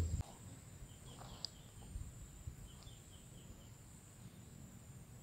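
Steady high-pitched insect drone, with two quick runs of short chirps about one and three seconds in.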